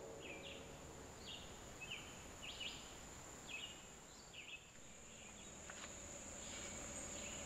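Quiet woodland ambience: a steady high-pitched insect drone, with a bird repeating short chirps about once or twice a second.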